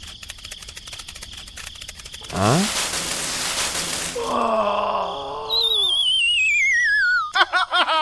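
Cartoon sound effects. A quick rising whistle and a whoosh, then a squeaky voice crying out, then a long falling whistle that wobbles as it drops, ending in a rapid run of short falling boings.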